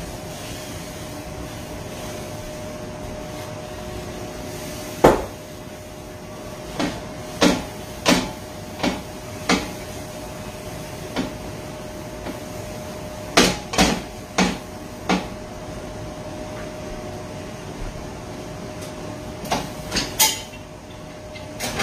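Cast-iron pot clunking and knocking against a metal oven door as it is rubbed with oil for seasoning and handled: a string of sharp, irregular knocks, several in quick succession about two-thirds of the way in and again near the end.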